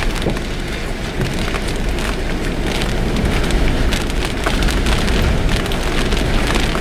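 Strong storm wind rushing and buffeting the microphone, with a heavy low rumble and many scattered sharp crackles.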